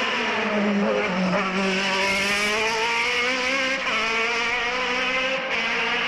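Open-wheel single-seater racing car's engine at high revs: the pitch falls as it slows for the bend, then climbs as the car accelerates away, with a brief dip at a gear change about four seconds in before it climbs again.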